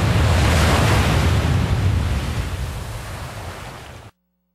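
Ocean surf surging against rocky sea cliffs: a loud rush of breaking water that swells, slowly fades, then cuts off abruptly about four seconds in.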